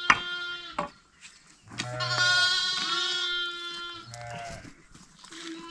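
A young goat bleating several times: a short call at the start, one long loud call from about two seconds in, then shorter calls. A few sharp knocks from a digging bar striking stony ground come in the first two seconds.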